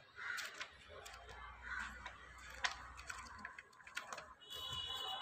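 Paper pages of printed study-material booklets being handled and flipped, a series of short rustles and light clicks.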